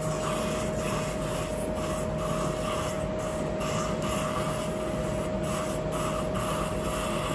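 Coblation wand ablating adenoid tissue: the generator's steady activation tone sounds over a noisy hiss from the wand's suction that pulses unevenly. The tone stops near the end.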